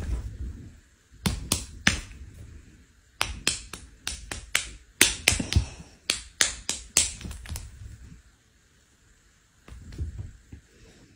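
Two hairless cats play-fighting on a couch: a string of sharp clicks and taps in irregular clusters, with soft thumps underneath, then a pause and a last few taps near the end.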